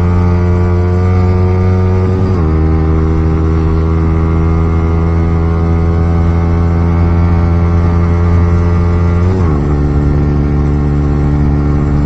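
KTM Duke 200's single-cylinder engine running hard at high revs under way, its pitch dropping sharply twice, about two and a half seconds in and near the end, as it shifts up a gear.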